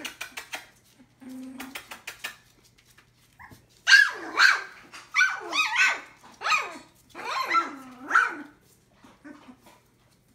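Collie puppies about three weeks old yipping and barking in a string of high, shrill calls, starting about four seconds in. Before that there are only light clicks and rustles.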